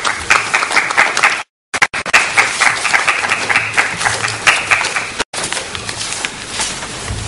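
Audience applauding a finished talk, a dense patter of many hands clapping that thins out after about five seconds. The sound cuts out completely for a moment about a second and a half in.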